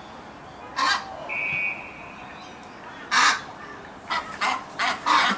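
Australian white ibis giving harsh, rasping croaks: two single calls about two seconds apart, then a quick run of short croaks near the end.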